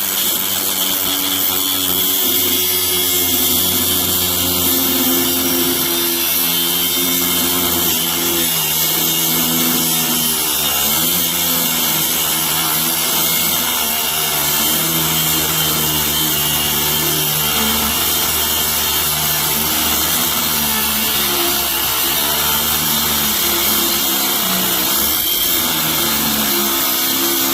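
Reloive 16V cordless 3-inch mini angle grinder cutting through a steel bolt. The motor runs steadily for the whole stretch, with a grinding hiss from the disc on the metal, and its pitch wavers as the disc bites.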